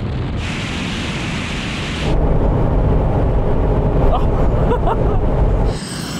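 A rushing noise for about two seconds, then the louder deep rumble of engine and road noise inside a Mercedes-AMG G63 running flat out at high speed, which drops away suddenly near the end.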